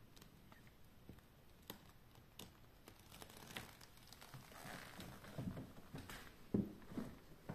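Faint rustling and handling noise from a handheld camera, with small clicks and a few soft knocks in the last two seconds.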